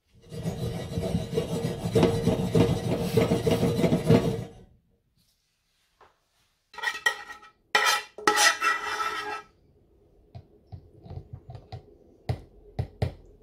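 Cookware being handled: several seconds of loud scraping and rubbing, then after a pause a few shorter scraping bursts. Near the end come light knocks of a metal spoon against a plastic blender cup as the chilli sauce is spooned in.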